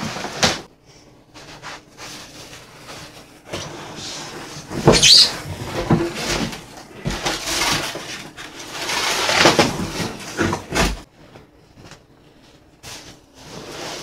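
Cardboard shipping box dragged up and off a plastic-wrapped portable washing machine: scraping and rustling in several surges, with a thud near the end.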